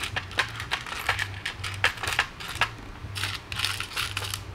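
Small metal hardware (screws, nuts and E-clips) clinking and rattling in a plastic compartmented parts tray as fingers rifle through it: a quick, irregular run of light clicks and jingles.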